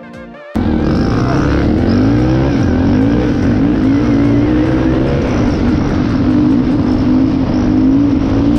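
Quad (ATV) engine running while riding, its pitch wavering up and down as the throttle changes. It cuts in abruptly about half a second in, after a brief tail of music.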